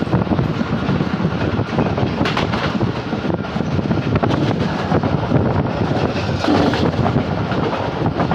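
Freight train hauled by an Indian Railways WAG-7 electric locomotive rolling past close by: a steady loud rumble of wheels on rail with irregular clanks and clatter from the wagons.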